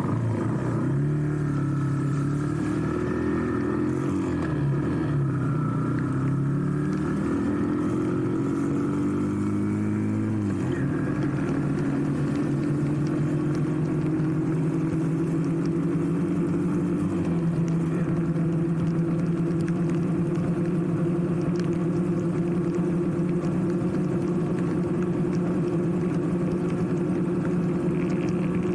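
Small motorcycle engine running under way. Its pitch rises and falls over the first ten seconds, drops abruptly about ten seconds in and again about seventeen seconds in as the gears change up, then holds steady at cruising speed.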